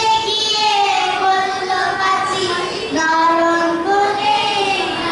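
Young children singing a song into a microphone, in long held notes that step from pitch to pitch.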